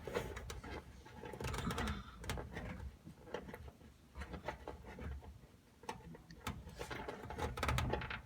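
Scattered small clicks and rubbing from wire connectors being worked by hand onto the terminals of a clothes dryer's replacement thermal fuse, in irregular bursts with short pauses.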